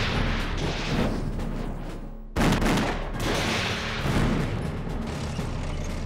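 Machine-gun fire mixed with heavy blasts. The sound drops out briefly about two seconds in and comes back with a sudden loud blast.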